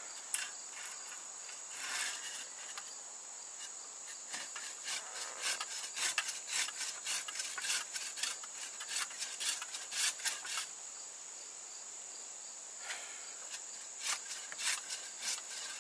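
Hand saw strokes rasping through wood in a quick back-and-forth run through the middle, with a few more strokes near the end. Crickets or other insects keep up a steady high trill throughout.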